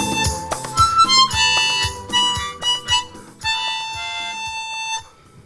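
Harmonica played into a microphone: a melody of separate notes over a steady low beat, closing on a long held note that stops about five seconds in.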